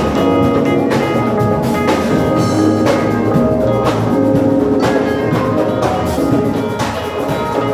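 Music with a steady drum beat under sustained pitched chords.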